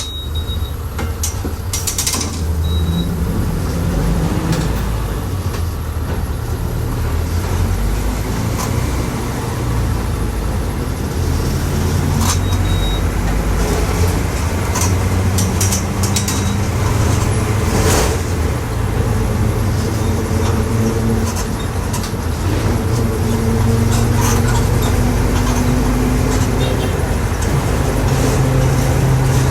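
Volkswagen 17.230 OD bus under way: diesel engine and drivetrain running with a loud drone from the differential, whose pitch shifts and rises as the bus speeds up, over light rattles from the body.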